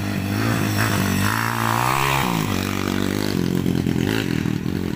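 Dirt bike engine revving hard as the bike accelerates along the track. Its pitch climbs, drops sharply about two seconds in, then runs lower and steadier as the bike pulls away.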